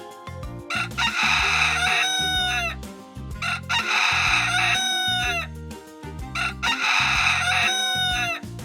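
Rooster crowing three times, each crow a long call that falls away at its end, over light background music.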